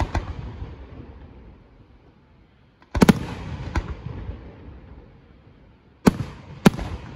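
Aerial firework shells bursting in sharp bangs, each trailing off slowly: one as the sound begins, a close group about three seconds in with another shortly after, and two more near the end.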